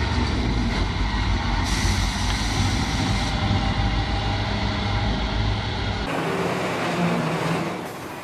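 Scania tipper truck's diesel engine running as it drives along a dirt track, a deep steady rumble. About six seconds in the sound cuts abruptly to another, quieter truck engine.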